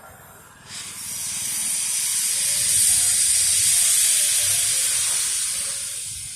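Puffing Billy narrow-gauge steam locomotive letting off steam: a loud hiss that starts about a second in, swells and tapers off near the end.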